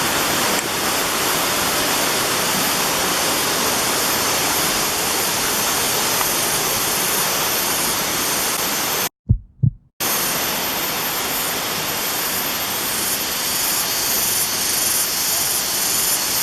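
Steady, loud rush of water from a stream or waterfall. It drops out briefly about nine seconds in, with two short low thumps in the gap.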